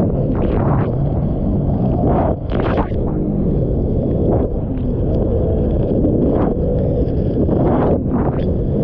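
Sea-Doo personal watercraft running through choppy waves, heavy wind buffeting the microphone in a constant low rumble. Short splashes of spray break over the bow several times.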